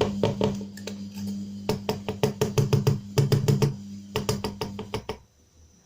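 Electric mixer whipping chantilly cream with cold milk: a steady motor hum with a fast, irregular clatter of the beaters against the bowl. It cuts off suddenly about five seconds in.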